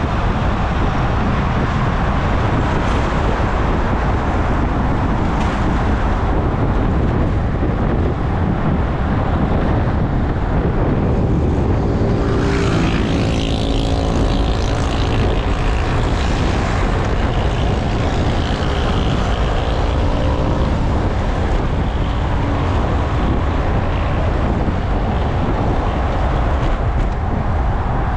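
Steady wind noise on the microphone of a road bike's handlebar camera riding at speed, with traffic noise under it. About twelve seconds in, a motor vehicle passes close by, its engine sound swelling and then fading over a few seconds.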